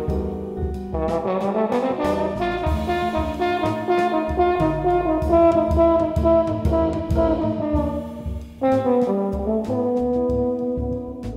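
Trombone playing a jazz line in sustained notes over double bass and drums, breaking off briefly about three-quarters of the way through before the next phrase.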